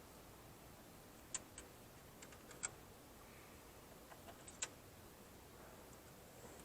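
A handful of scattered, light metallic clicks over a quiet background, the loudest about two and a half and four and a half seconds in: small bolts being handled and set in place while fastening a convertible top latch motor.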